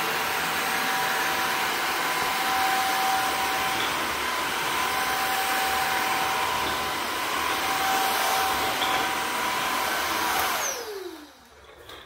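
Shark Anti-Wrap stick vacuum with DuoClean floor head running, steady rushing air with a whine on top, as it sucks up hair. About ten and a half seconds in it is switched off and the motor winds down with a falling whine.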